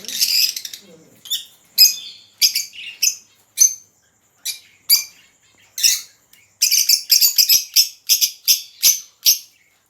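Caged aviary birds calling: short, sharp, high chirps, scattered at first, then a rapid flurry of chattering calls about seven seconds in.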